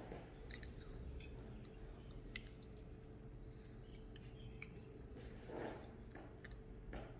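Quiet room tone: a steady low hum with a few faint, scattered clicks.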